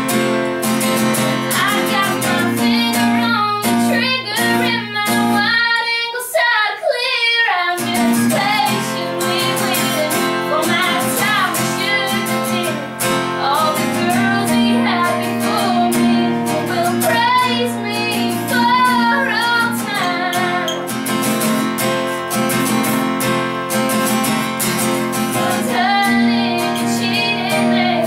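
A woman singing a song live while strumming her own guitar. The guitar drops out for about two seconds around six seconds in while her voice carries on alone, then comes back in.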